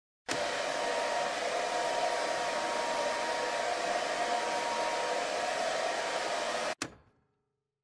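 Electric hair dryer on a stand blowing steadily, drying a freshly etched metal specimen. It switches on abruptly, runs evenly with a faint steady whine and cuts off suddenly near the end, followed by a short click.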